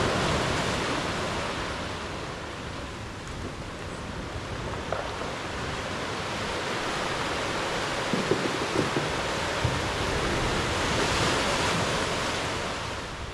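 Ocean waves surging in and draining back over a beach of large rounded boulders, swelling at the start and again near the end. A few brief knocks of the boulders rolling and bouncing against each other sound like bowling balls.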